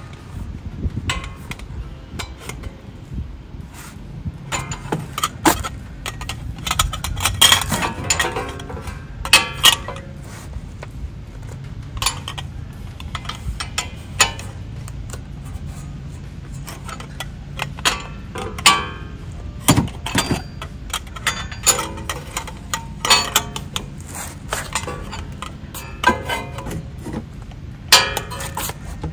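Metal tools working on a wheel hub: irregular clinks and clicks of a socket wrench tightening the hub bearing assembly's mounting bolts, some clicks coming in quick clusters.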